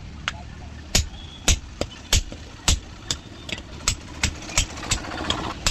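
Hammer blows on steel, about three a second and unevenly spaced, as an axe is forged from a leaf spring, over a steady low engine-like hum.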